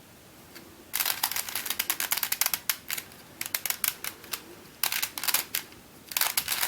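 Primary-plastic Dayan + MF8 Bermuda Megaminx being twisted in quick runs, its plastic pieces clicking and clacking. The turning starts about a second in and comes in three spells with short pauses between.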